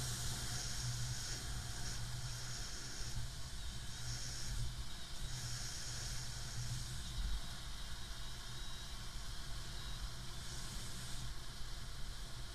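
Airflow of a paraglider in flight rushing over the camera's microphone: a steady hissing wind noise that swells and eases in uneven gusts.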